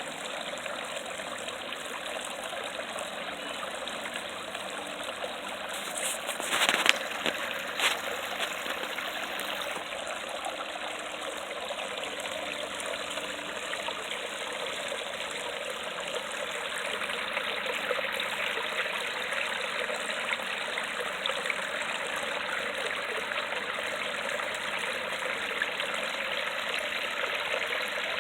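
Creek water falling over rocks: a small waterfall's steady rushing and trickling. A few brief sharp sounds stand out between about six and eight seconds in.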